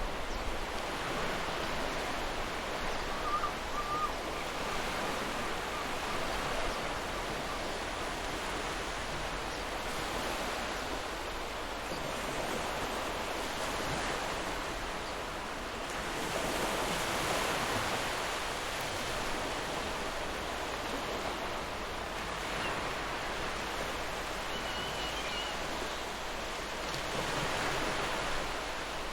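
Gentle ocean waves washing in as a steady hiss of surf that swells and eases in slow surges, building twice in the second half.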